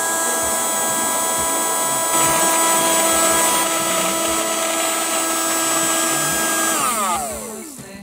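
A battery-powered toy Henry vacuum cleaner's small motor running with a steady whine over a rush of air. About seven seconds in it winds down, its pitch gliding downward until it stops.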